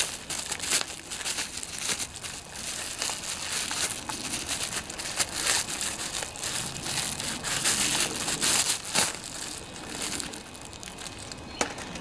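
Plastic bubble wrap crinkling and crackling in the hands as it is unwrapped, a dense run of small crackles that quiets near the end.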